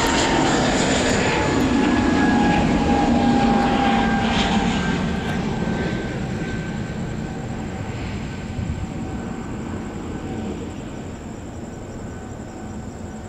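Twin-engine jet airliner climbing out after takeoff, its engines at takeoff thrust. The engine noise has a whining tone that slowly falls in pitch. It is loudest in the first few seconds and then fades steadily as the aircraft climbs away.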